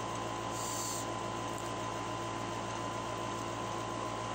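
Steady background hum and hiss with a constant high-pitched tone, and a brief higher hiss about half a second in.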